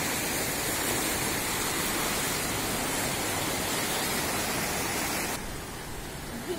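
Floodwater rushing and churning through a concrete-walled channel, a steady, loud wash of white-water noise. About five seconds in it turns suddenly quieter and duller.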